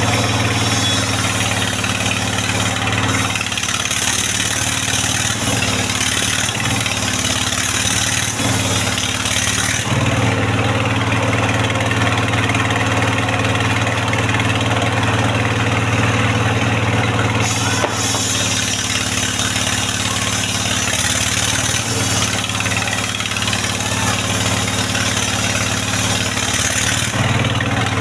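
Engine-driven mobile circular sawmill ripping a mahogany log into rafters: the engine runs continuously while the blade cuts through the wood, and the engine note wavers under load during two long cuts, one early and one in the second half.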